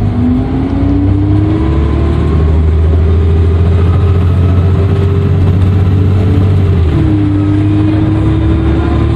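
Dennis Trident II double-decker bus under way, its diesel engine humming under load with a turbo whistle: a whine that rises in pitch over the first couple of seconds as the bus accelerates, holds steady, then drops about seven seconds in.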